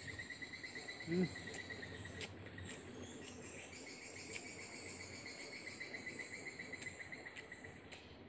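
An insect trilling steadily in a fast, even pulse at one pitch, with a short break a little after two seconds. Faint clicks and mouth noises from someone chewing food.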